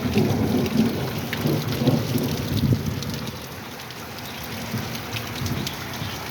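Heavy rain pouring down, with many sharp drips and a low rumble of thunder that is strongest in the first few seconds and then eases off.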